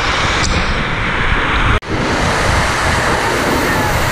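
Waterfall rushing: a loud, steady roar of falling water, broken by a momentary gap just under two seconds in.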